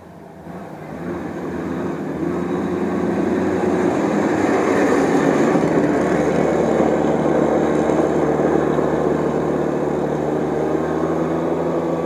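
Go-kart's small engine running, growing louder over the first few seconds and then holding steady and loud.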